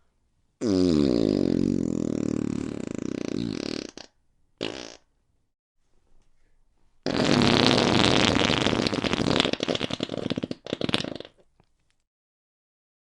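Fart sound effects: a long fart of about three seconds whose pitch slides down, then a short one. After a pause comes a long, rapid sputtering fart that breaks up into short puffs before it stops.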